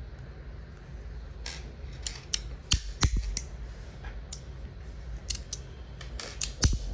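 Irregular sharp small metal clicks and taps from a metal fidget slider being handled and clicked through its detents, with a quick run of clicks near the end.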